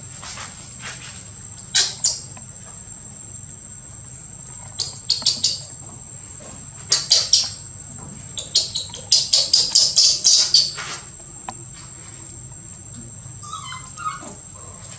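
High-pitched squeaks from a newborn macaque in short clusters: a pair about two seconds in, a few more around five and seven seconds, then a fast run of about ten squeaks, then quiet. A steady high insect drone runs underneath.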